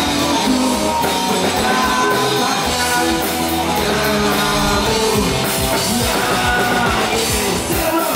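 Loud rock music with electric guitar and drums, and a singing voice in places, playing steadily throughout.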